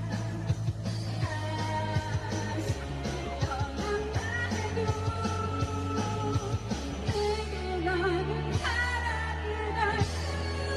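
A pop song with a singer's voice over a steady bass line and a regular drumbeat.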